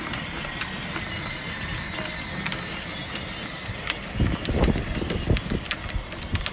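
Pink Barbie Cadillac Escalade ride-on toy car driving, its small electric motor whining steadily as the plastic wheels roll on asphalt, with scattered light clicks. From about four seconds in, loud irregular low rumbles come over it.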